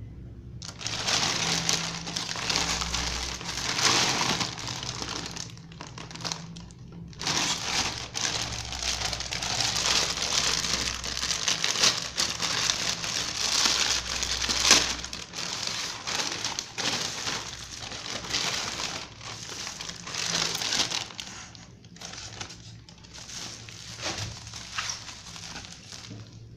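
Plastic courier mailer bag crinkling and rustling as it is pulled open and handled. There is a brief lull about six seconds in, and the rustling thins out over the last few seconds.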